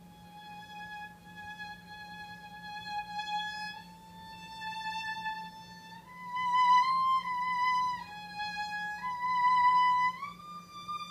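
Music: a slow solo melody of long, held high notes, one at a time, getting louder about halfway through and stepping up in pitch near the end.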